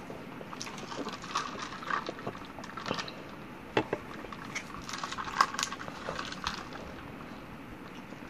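Close-up eating sounds of a TV dinner lasagna being chewed: soft wet mouth noises with scattered sharp clicks, the sharpest about four and five and a half seconds in.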